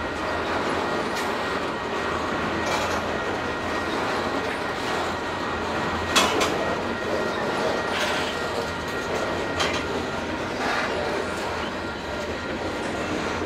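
Covered grain hopper cars of a long freight train rolling steadily past, a continuous rumble of wheels on rail. A few sharp metallic clanks come at irregular intervals, the loudest about six seconds in.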